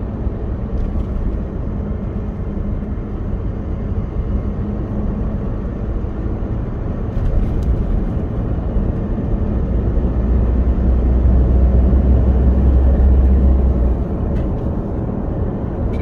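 Car driving on a paved road, heard from inside the cabin: a steady low drone of engine and tyre noise, growing louder for a few seconds in the second half.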